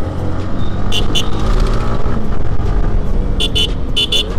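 Motorcycle riding along a road: a steady engine and road rumble, broken by three pairs of short, sharp beeps, one pair about a second in and two more close together near the end.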